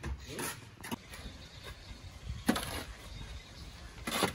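Shovel scraping through soil on the steel cargo bed of a small tipper as the load is shovelled off by hand. It comes as a few separate scraping strokes, the loudest about two and a half and four seconds in.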